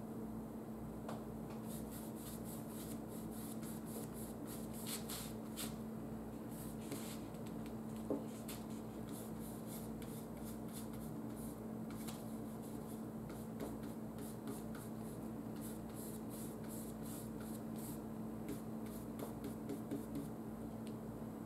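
Paintbrush stroking on a canvas panel: quick, scratchy strokes that come in clusters, over a steady low hum.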